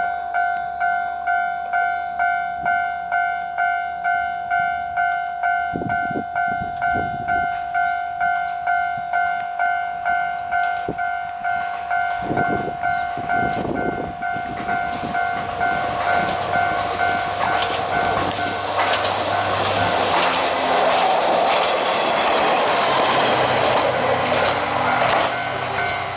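Railway level-crossing alarm ringing an even, repeating two-tone electronic ding-ding, about one and a half strokes a second. In the second half a Kanto Railway Jōsō Line diesel railcar approaches and passes: its engine and its wheels on the rails grow loud and drown out the bell.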